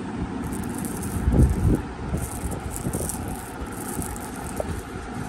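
Small diamond quartz crystals clinking and rattling together in a palm as the hand shifts them, with low rumbling handling noise that swells about a second and a half in.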